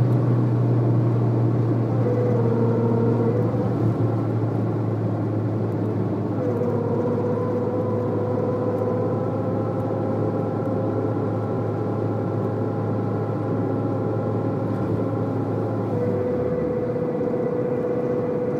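Citroën Saxo driving at highway speed: a steady low drone with a higher humming whine that fades in and out, and the low drone drops away near the end. This front-end noise under speed and throttle is the one the owner cured by replacing the left drive shaft.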